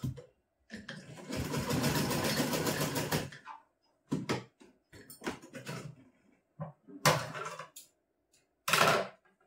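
Hand-cranked sewing machine stitching for about two and a half seconds with a fast, even clatter. It is followed by short knocks and rustles as the cloth and machine are handled.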